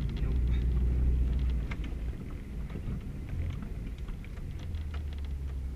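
Subaru Baja driving on a rough dirt forest road, heard from inside the cabin: a deep rumble of engine and tyres, louder for the first two seconds or so, with scattered ticks and rattles over it.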